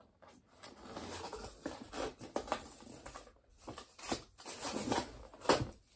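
Tape being peeled off a cardboard box: a run of short scratchy rips and rustles, the sharpest about two and a half, four and five and a half seconds in.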